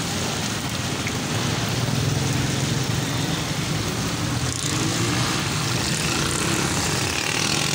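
Steady low mechanical drone, like a motor or engines running, under a broad even hiss.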